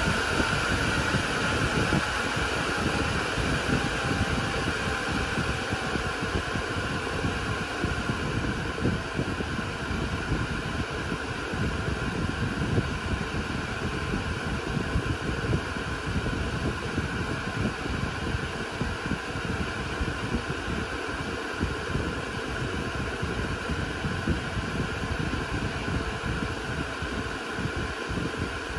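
Dell Compellent SCV2020 storage array's cooling fans running steadily with a loud rushing whir and several fixed whining tones. The highest whine fades somewhat over the first few seconds as the fans slow a little.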